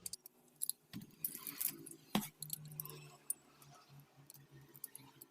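Light metallic clicks and clinks of a bearing puller being fitted and worked on the pump motor's shaft to draw off the worn bearing, with a short scrape a little over a second in and one sharper knock about two seconds in.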